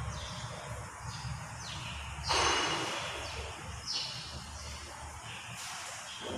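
Birds chirping: a string of short, high calls that each fall in pitch, repeating every half second or so. A louder burst of noise about two seconds in, over a low rumble that fades out about five seconds in.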